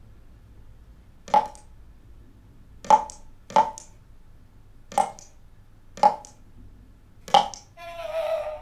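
Water dripping from a tap: six sharp plinks at uneven intervals, roughly one every second. Near the end a short, wavering, high-pitched tone sounds for under a second.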